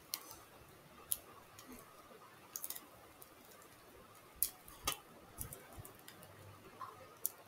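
Faint, scattered light clicks and taps, with a short crackle a little before the middle, from hands fixing a paper sheet to a board at its corners.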